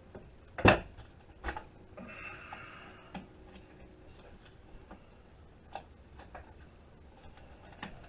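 Scattered clicks and knocks of hand tools and metal parts being handled while a network switch is taken apart for scrap. A loud knock comes just under a second in and another about a second and a half in, with a short scraping rasp around two seconds in.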